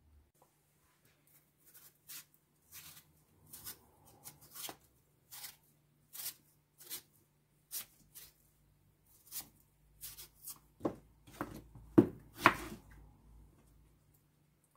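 A kitchen knife cutting the rind off honeydew melon slices on a wooden chopping board: a string of short cutting sounds, roughly two a second, loudest near the end.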